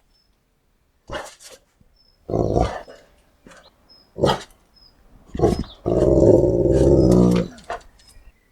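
A large dog growling: several short growls, then one long, rattling growl of about a second and a half near the end.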